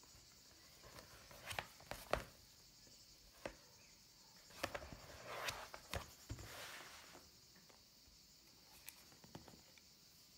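Faint handling of a leather laptop sleeve on a desk: a few soft knocks and taps as it is opened, lifted and stood up, with a short rubbing, sliding sound about five seconds in and a couple of light taps near the end.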